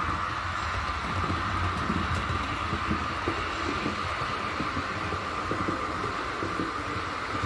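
H0-scale model train running on the layout track: a steady electric motor whine over a low rumble, with the light irregular clatter of wheels on the rails.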